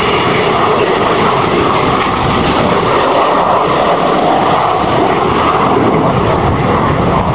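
Avro Vulcan XH558's four Rolls-Royce Olympus turbojets, a loud, steady jet rumble as the delta-wing bomber flies low past and banks overhead.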